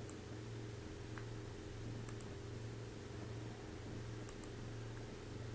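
A few faint computer mouse clicks, one at the start and then pairs about two and four seconds in, over a steady low hum.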